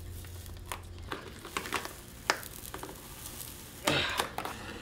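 Adhesive-backed EVA foam boat decking being pried up and peeled off a fiberglass deck: scattered small scratches and clicks, then a louder tearing rasp about four seconds in.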